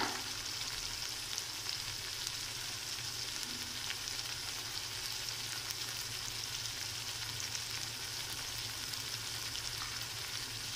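Onion-garlic-ginger masala paste with chilli powder and salt frying in oil in an aluminium kadai: a steady, even sizzle with faint scattered crackles.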